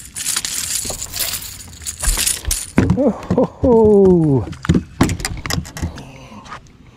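A small bass is swung out of the water and into a boat. First comes a rush of splashing water, then a run of sharp clattering knocks as the fish and lure land and are handled on the deck.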